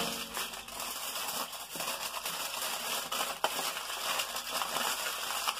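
Aluminium foil being crumpled and folded by hand around a rack of pork ribs: continuous crinkling and crackling.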